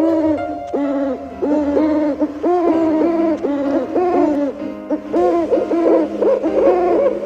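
Owl hooting: many short hoots, each rising and falling in pitch, following one another several times a second and overlapping.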